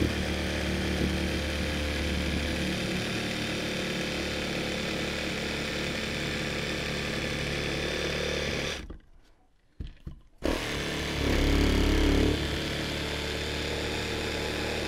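Proxxon Super Jigsaw, a small electric crafter's jigsaw, running steadily as its blade cuts through a hard-shelled dried gourd. Partway through it stops for about a second and a half, with a couple of clicks, then starts again and runs on.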